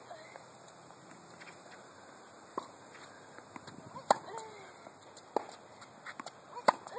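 Tennis balls being hit on a hard court during a groundstroke rally: sharp racket-on-ball and bounce knocks about every second and a half, the loudest about four seconds in, followed by a short falling tone.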